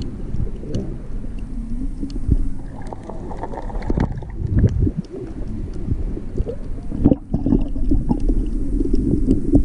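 Muffled underwater noise from a submerged camera: water moving and rumbling around the housing, with scattered dull knocks and clicks.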